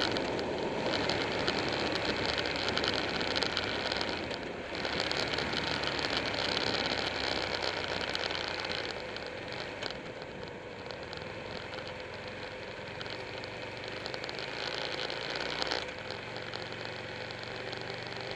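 Wind rushing over a motorcycle-mounted camera at road speed, with the steady drone of the Buell 1125R's V-twin engine underneath. The engine note shifts about four and a half seconds in and again near the end, and the sound eases somewhat partway through.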